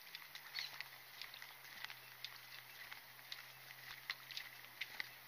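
Footsteps of a person walking on a concrete path: irregular soft ticks and scuffs several times a second, over a faint steady hum.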